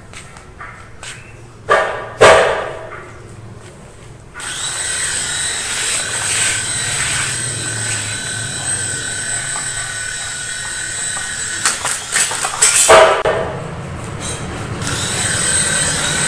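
Small toy RC helicopter's electric rotor motors whining steadily as it tries to lift a small boxed circuit breaker tied beneath it on a string. Two sharp knocks come before the motors spool up about four seconds in, and a burst of clattering breaks the whine around twelve seconds in before it picks up again.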